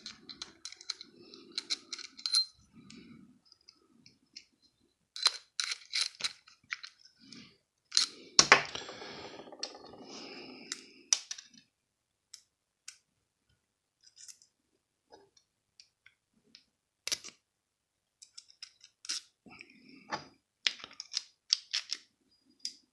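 Small metallic clicks and clinks as the parts of a spinning reel and a screwdriver are handled during reassembly. They come in scattered groups, with a louder knock about eight and a half seconds in.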